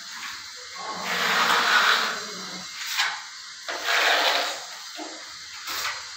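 Putty knife spreading Birla wall putty across a plastered wall: two long scraping strokes of about a second each, with shorter scrapes and a couple of sharp clicks between them.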